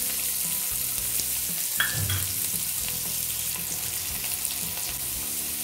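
Chopped onion sizzling steadily in hot oil in a stainless-steel kadhai, just added to the cumin-and-bay-leaf tempering, with a brief metallic clink a little under two seconds in.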